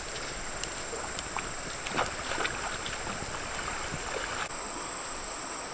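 Steady high-pitched insect drone over outdoor background noise, with scattered small clicks and knocks.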